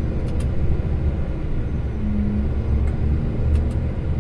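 Steady low rumble of a truck's engine and tyres heard from inside the moving cab, with a faint hum that fades in and out and a few light clicks.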